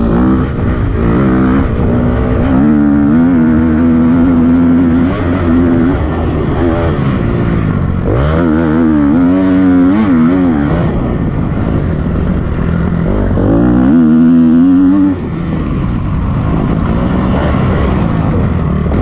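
Freshly rebuilt 2012 KTM 250 XC-F dirt bike's single-cylinder four-stroke engine under riding load, revving up and easing off several times as the throttle is worked, with the throttle chopped sharply about three-quarters of the way through.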